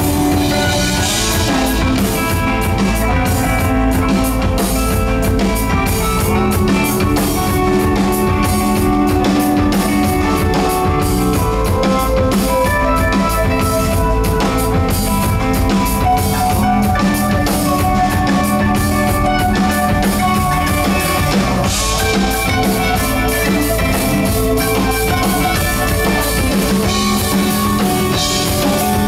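Live progressive rock band playing an instrumental passage: electric guitar, keyboards, bass and drum kit, loud and steady with sustained chords over a driving beat.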